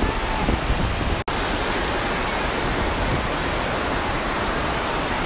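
Steady rush of falling water at Niagara Falls, cutting out for an instant about a second in.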